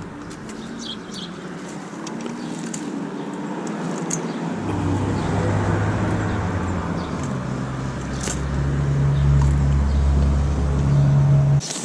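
Road traffic with a motor vehicle's engine running close by: a low steady hum comes in about a third of the way through and grows louder, then cuts off suddenly near the end.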